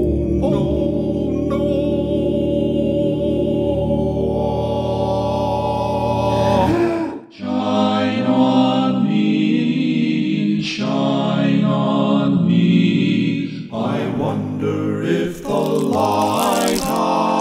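Barbershop quartet singing a cappella in close harmony, holding long chords with no clear words, with a brief break about seven seconds in before the chords resume.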